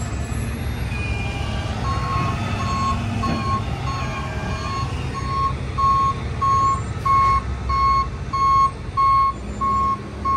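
Flatbed tow truck backing up. Its reversing alarm starts beeping about two seconds in, steady and evenly spaced at roughly one and a half beeps a second, and grows louder as the truck nears, over the low rumble of its engine.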